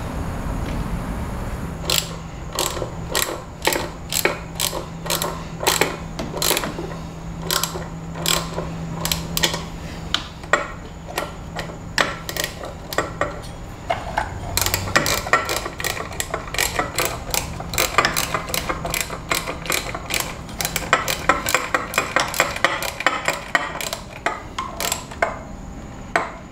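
Hand ratchet clicking in repeated strokes as bolts are run down, the clicks coming quicker in the second half.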